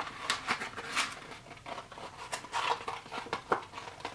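MRE plastic and foil pouches crinkling and rustling as they are handled, in a quick, irregular string of crackles.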